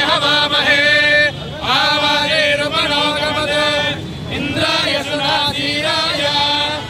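A group of men chanting Vedic mantras in unison, holding steady reciting pitches in long phrases with brief breaths between them.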